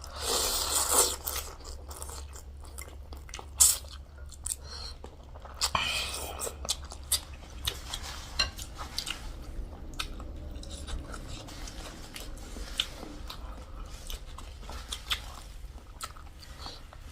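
Close-miked eating: chewing and biting with irregular crunches and smacks, and two brief noisy rushes, near the start and about six seconds in.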